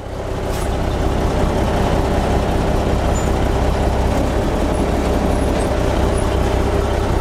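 Military truck engine running, heard from inside the cab as a steady, loud low drone that fades in over the first second and then holds even.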